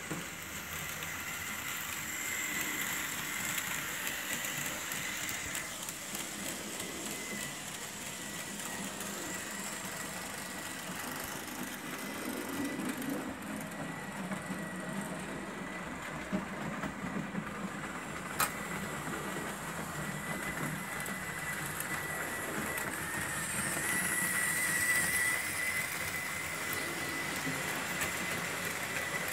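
Märklin H0 model trains running on a layout: a steady high whine from the locomotive motor over the rolling of wheels on track, with two sharp clicks about halfway through.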